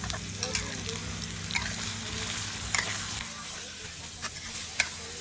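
Beef chunks sizzling in a metal wok while a metal spatula stirs them, with several sharp scrapes and clinks of the spatula against the wok.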